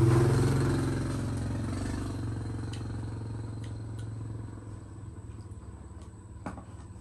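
A motor engine passing close by, loudest at the start and fading away over several seconds. A few light clicks sound in the second half.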